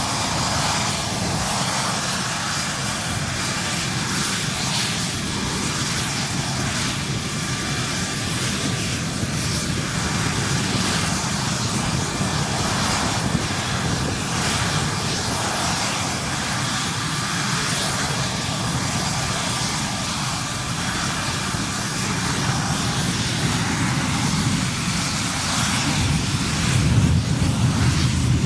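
F-16 fighter's jet engine running in a ground engine test with the aircraft anchored to a trim pad: a steady rush with a faint high whine, growing louder and deeper over the last few seconds as power comes up.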